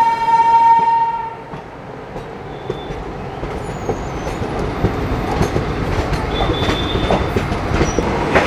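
A locomotive horn sounds one steady note that cuts off about a second in. Then a moving passenger train's wheels roll over the track, clicking over rail joints and points, with brief high wheel squeals.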